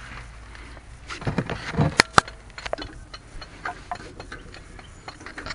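Metal clicks and knocks of a worn disc brake pad being pried and wiggled loose from the caliper bracket, with two sharp clicks close together about two seconds in, then scattered lighter ticks.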